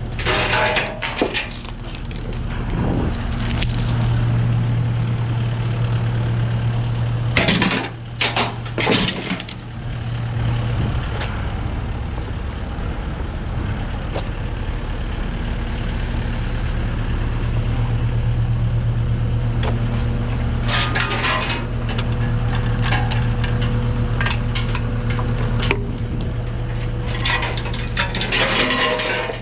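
Diesel engine running steadily, with several short bursts of metal clinking and clanking.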